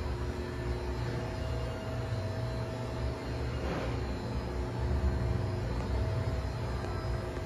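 Steady low machine hum with faint steady tones above it, unbroken throughout.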